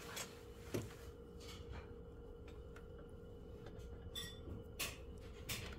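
Faint, scattered swishes of a paintbrush working oil paint on canvas, with a brief high-pitched tone about four seconds in, over a steady low hum.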